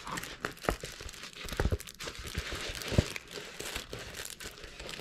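Clear plastic protective film on a diamond painting canvas crinkling as the canvas is handled and unrolled: irregular crinkling with a few sharper crackles.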